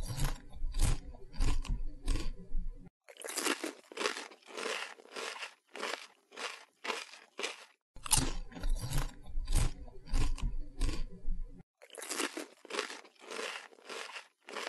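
Syrian hamster nibbling a piece of cake held in its paws: quick, crisp crunching bites, a few a second, in runs with short pauses.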